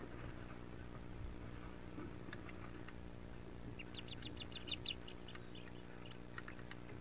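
Wood duck ducklings peeping: scattered short high peeps, then a quick run of about ten louder peeps around four seconds in, over a steady low hum.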